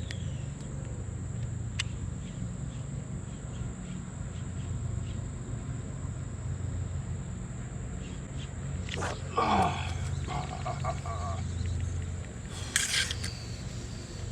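Electric trolling motor on a bass boat humming steadily at a low pitch and stopping about twelve seconds in. A short falling sound comes about nine seconds in, and a brief sharp noise near the end.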